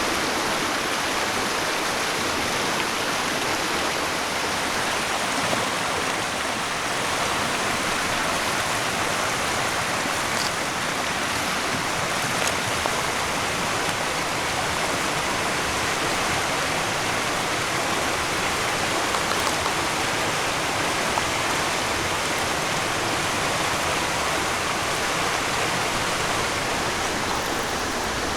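Steady, even rushing noise, like running water, with a few faint ticks.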